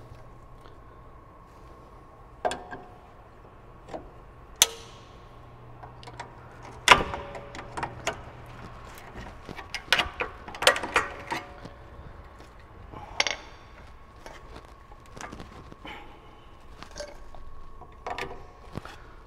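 Irregular metallic clicks, taps and clinks of hand tools working against a Brembo brake caliper while prying at the pad-retaining spring, a few strikes ringing briefly. A faint steady hum runs underneath.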